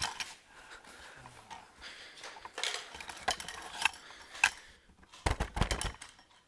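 Handling noise from a camera being moved about and pressed against clothing: scattered clicks, knocks and rustling, with a burst of heavy low thumps near the end.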